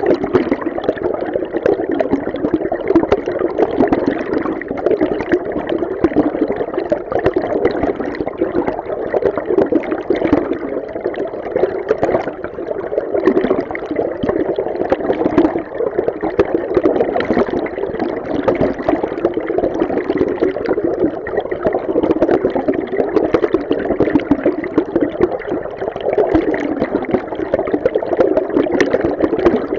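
River stream recorded underwater: a steady rush of flowing water with a constant churning texture, mostly deep and dull with little hiss, and no distinct events.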